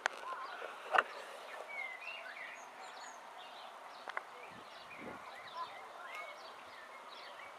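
Birds chirping and calling outdoors, many short repeated chirps over a low background hum of outdoor noise, with a sharp knock about a second in and a smaller click about four seconds in.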